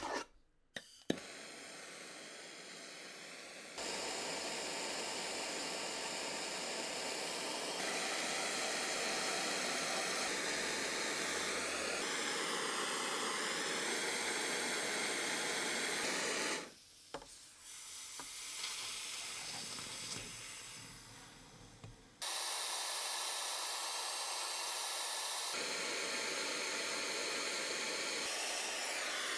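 Handheld gas blowtorch hissing steadily as its flame heats the rusted steel frame of a Walther P38. The hiss comes in several stretches with abrupt changes in level and has a quieter spell about two-thirds through. There are a couple of clicks near the start.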